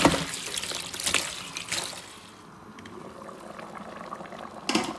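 Thick cocoyam soup bubbling in a pot, with crackling pops that are busiest in the first two seconds, quieter through the middle, and a louder burst near the end.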